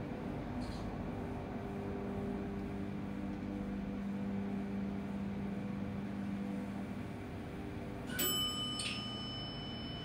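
ThyssenKrupp passenger elevator travelling in its shaft, its drive running with a steady hum that fades out about seven seconds in. Just after eight seconds the elevator's arrival chime sounds: a bright ding, struck twice, that keeps ringing.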